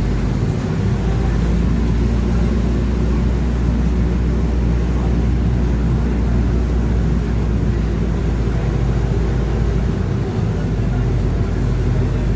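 Cabin sound of a 2012 Mercedes-Benz OF-1721 BlueTec5 bus under way: diesel engine running with a steady deep drone from the differential growling. The drone eases a little about ten seconds in.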